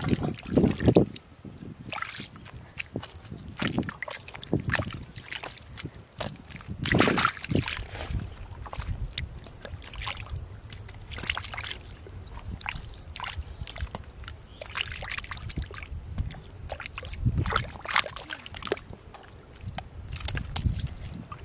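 Hands digging and scooping in a water-filled mud hole: irregular wet squelches, sloshes and small splashes of mud and water.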